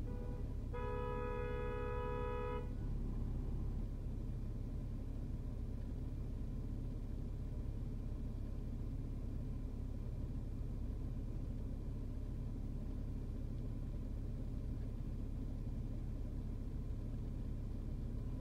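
A car horn blares once for about two seconds, starting just under a second in, after a very short tap right at the start. Under it a steady low rumble of idling traffic goes on throughout.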